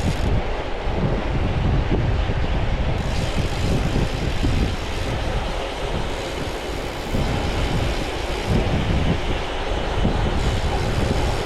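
Steady wind rush and rolling road rumble from riding a gravel bike on pavement, heard through a chest-mounted GoPro's microphone, with the low end buffeting unevenly.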